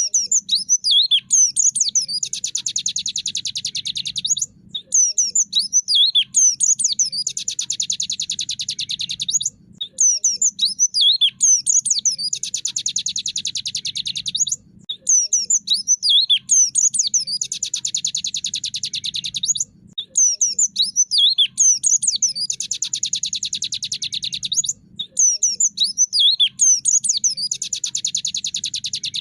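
White-eye (pleci) singing its 'tractor' song: a second or so of quick high twittering notes, then a long rapid buzzing rattle like a small engine. The phrase repeats about every five seconds as a looped training recording.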